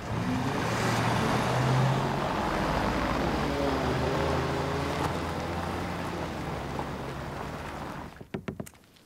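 Car engine and tyre noise as a car pulls away and drives off, the pitch of the engine shifting as it goes. The sound slowly fades over several seconds. A few sharp clicks come near the end.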